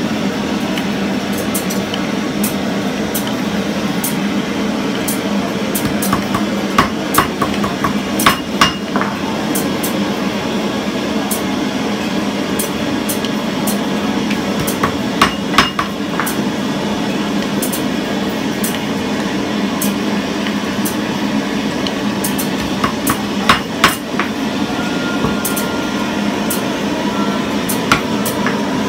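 Metal bangles being tapped with a wooden mallet on a metal rod resting on a wooden block: sharp knocks, each with a brief metallic ring, coming singly and in quick clusters. A steady low hum runs underneath.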